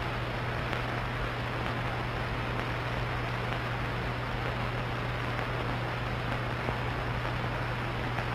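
Steady hiss with a constant low hum underneath: the background noise of an old film soundtrack, with nothing else standing out.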